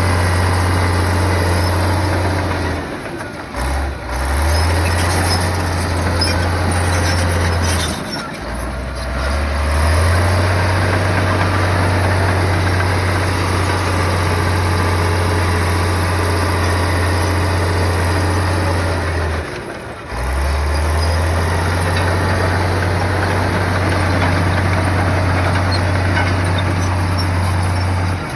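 Heavy earthmoving machine's diesel engine running steadily with a deep drone. It drops away briefly about three, eight and twenty seconds in, then comes back slightly higher.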